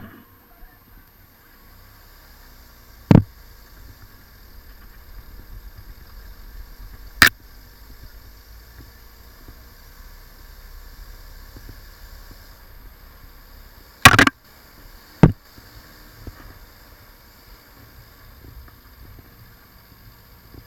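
Four sharp, loud bangs or knocks, spaced a few seconds apart with the last two about a second apart, over a faint low rumble.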